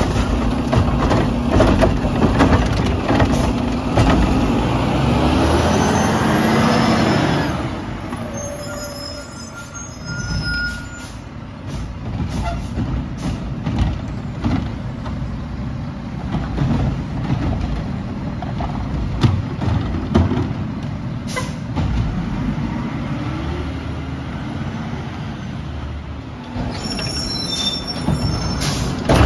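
Mack LR garbage truck working its route: the engine revs high with rising whines for the first several seconds, then drops to a lower, quieter run with a sharp knock part way through and air-brake hisses.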